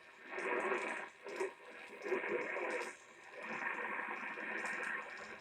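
Radio broadcast heard through a receiver: an indistinct, muffled voice in short phrases, cut off below and above like narrow-band broadcast audio, under light static hiss.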